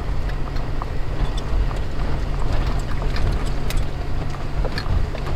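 Car driving over a rough, unpaved dirt and gravel road: a steady low rumble of engine and tyres, with scattered clicks and rattles from stones and the jolting car.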